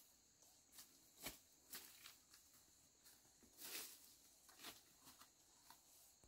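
Faint, irregular rustles and crackles of footsteps on dry bamboo leaves and twigs, with a longer rustle near the middle.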